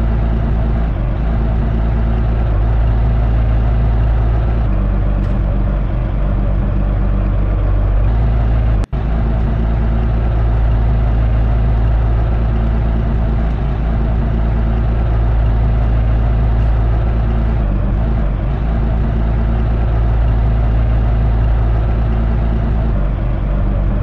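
Heavy engine running steadily at idle, a loud, even low rumble, cut off for a split second about nine seconds in.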